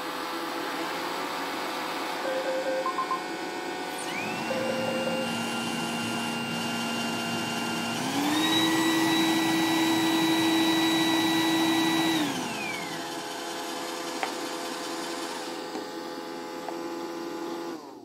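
iRobot Roomba robot vacuums running their motors in built-in self-test mode, a steady machine hum with a few short beeps in the first five seconds. About four seconds in, a motor spins up with a rising whine, steps up to a higher speed around eight seconds, and winds down about twelve seconds in.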